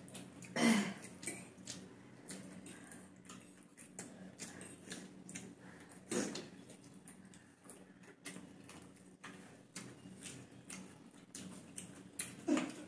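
Eating noises: metal forks clicking and scraping on plates of chowmein, with chewing and a couple of louder noodle slurps, over a low steady hum.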